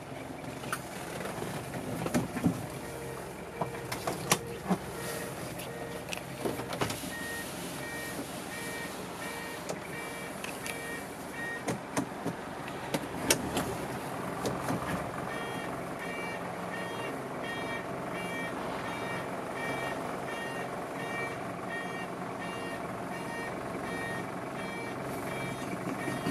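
Toyota 2L 2.4-litre diesel engine idling in the cab of a 1989 Toyota Hiace fire truck, with scattered clicks and knocks in the first half. From about eight seconds in, an electronic warning buzzer beeps steadily, about one and a half times a second.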